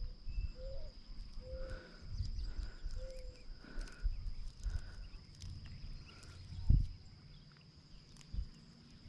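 Short repeated calls of a wild animal, a note about every second, first low and then higher. There is low handling rumble, and a sharp knock about seven seconds in.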